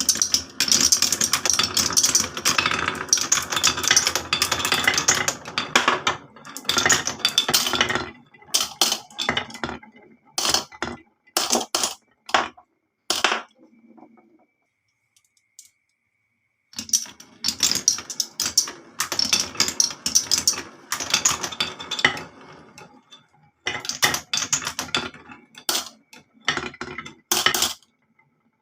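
Marbles rolling and clattering down marble run tracks: a dense rattle of clicks for several seconds, then scattered single clicks, a pause of a couple of seconds about halfway, then another burst of rattling that thins out into separate clicks.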